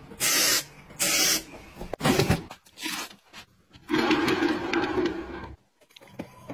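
Two short hisses from an aerosol spray can, about half a second each and close together. About four seconds in, a longer spell of scraping and rustling as a plastic knife holder is handled.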